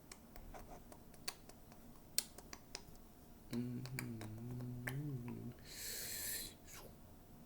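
Scattered clicks on a computer during the first three seconds, then a low voice hums one steady note for about two seconds, followed by a short breathy burst.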